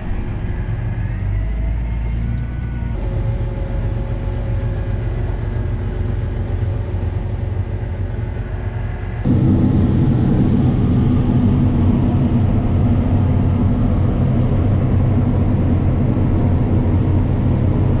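Tractor engine hum from inside the cab while driving. About halfway through it switches suddenly to the louder, denser running of a John Deere combine harvesting standing corn, heard from its cab.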